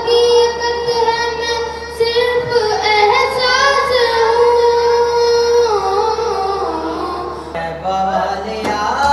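A boy singing a naat, a devotional praise poem, into a microphone in long drawn-out, ornamented notes.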